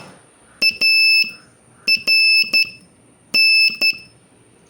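Morse code sent as high-pitched beeps: short dots and longer dashes in three letter groups with gaps between them, keying the practice word BARK.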